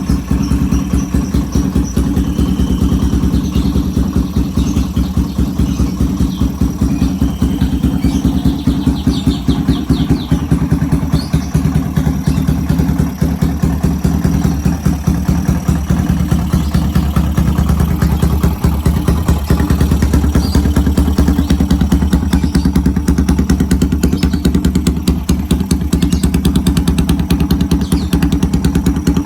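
Custom chopper motorcycle engine idling steadily through its exhaust, with a fast even train of exhaust pulses.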